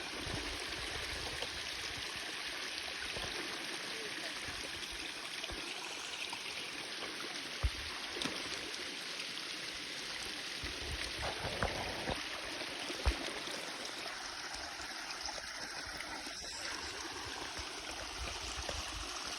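Steady rush of a stream running over small waterfalls, with a couple of brief low thumps about eight and thirteen seconds in.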